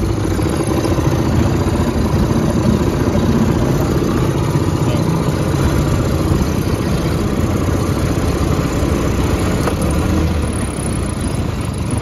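Mariner 3.3 hp single-cylinder two-stroke outboard motor running steadily, freshly serviced with a cleaned carburettor and new spark plug; it eases off slightly near the end.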